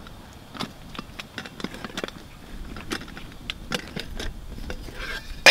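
Rustling of a mesh stuff sack and small clicks and taps as a camp cook pot is worked out of it, ending in a sharp metallic clink with a brief ring from the pot and its lid.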